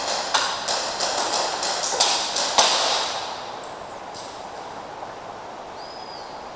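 Airsoft gas pistol gunfire: a quick string of about ten sharp shots over the first three seconds, the last and loudest about two and a half seconds in. A faint short chirp follows near the end.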